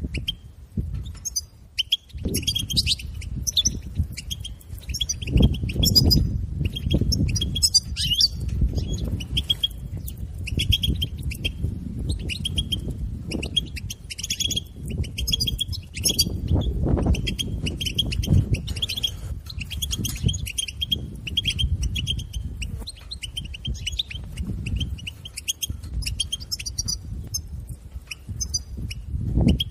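European goldfinch twittering: a fast, nearly continuous run of short high chirps and trills, over a low rumble.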